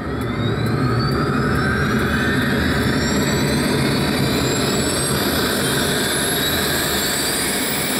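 BD-5J's small Microturbo TRS-18 turbojet spooling up during its start, a whine rising steadily in pitch over a steady low rumble.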